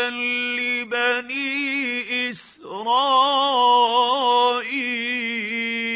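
A man's voice reciting the Quran in slow, melodic tajweed, drawing out long held notes with small turns in pitch. A short pause for breath comes about two and a half seconds in.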